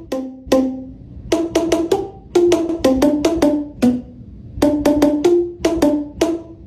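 A quick tune tapped out on wooden-sounding pitched percussion: short, sharply struck notes at several pitches, played in quick runs with brief gaps between them.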